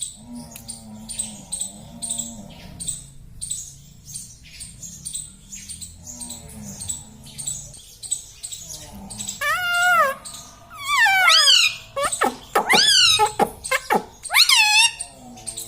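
Parrot vocalising: soft, quick high chirps at about three a second, then from about two-thirds in a run of loud, wavering calls that bend up and down in pitch.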